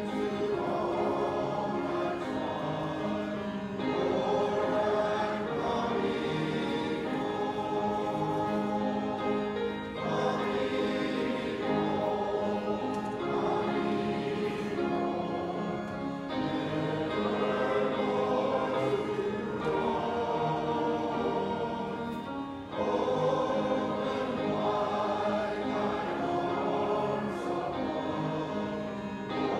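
A congregation singing a hymn together with piano accompaniment, in sung lines about six seconds long with short breaks between them.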